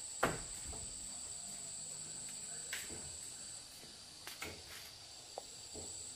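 Insects chirring in a steady, high-pitched drone that breaks off a little past halfway and starts again near the end. A few light knocks sound over it, the sharpest just after the start.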